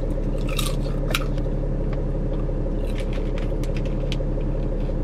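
Steady low hum inside a car's cabin, with scattered sharp crinkles and crunches as popcorn is taken from a plastic snack bag and eaten.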